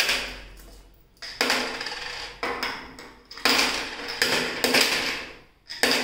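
Coins dropped one at a time through the slot of a plastic toy coin bank, each landing with a sharp clink and a brief rattle inside the hollow box, about one a second, seven in all.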